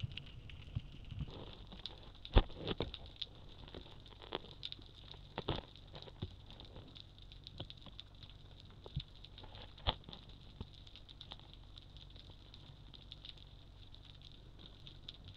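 Underwater ambience recorded at the camera: a steady crackle of scattered sharp clicks over a faint hiss, with a few louder knocks in the first ten seconds.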